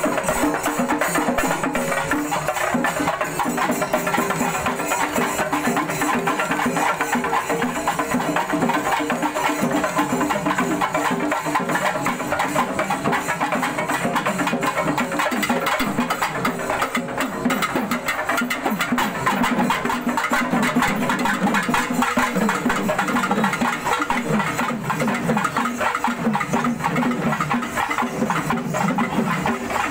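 Temple festival procession band playing barrel drums: continuous dense drumming with many rapid strikes, loud and unbroken.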